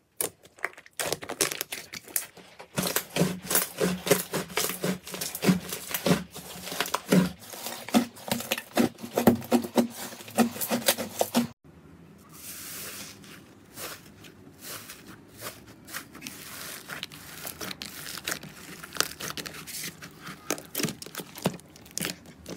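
Hands pressing and poking soft glossy slime: a dense run of wet clicks and crackles as trapped air pockets pop. About halfway through it changes to a thicker purple slime being pulled and worked, with a short soft tearing hiss and then sparser clicks and squelches.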